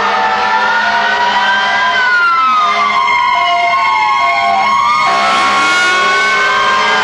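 Several fire truck sirens wailing at once, their pitches rising and falling slowly and out of step with one another.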